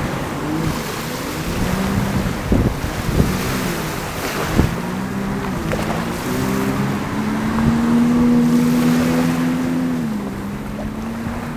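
Jet ski engine running out on the water, its pitch rising and falling as it throttles and turns, then holding steady for a couple of seconds before dropping near the end. Wind buffets the microphone over small waves lapping at the shore.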